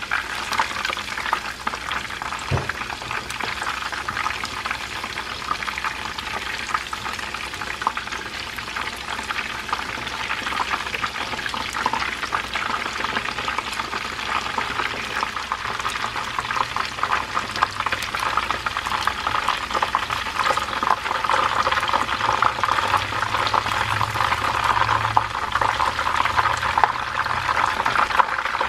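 Battered chicken pieces deep-frying in hot oil in a frying pan: a steady sizzle of dense crackles, growing a little louder over the last few seconds.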